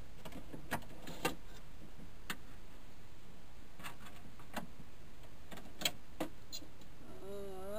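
Scattered clicks and knocks, about eight over several seconds, of a replacement power window regulator being handled and fished into a 1997 Lincoln Town Car's front door shell, metal parts tapping against the sheet-metal door.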